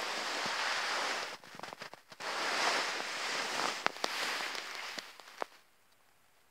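Loud rustling and scuffing right against the microphone, broken by several sharp clicks, dying away to quiet near the end.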